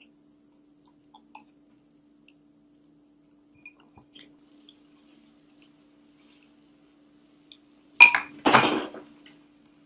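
Faint small clicks and ticks over a steady low hum, then, about eight seconds in, a sharp loud knock followed at once by a longer clatter of hard objects, like something knocked over.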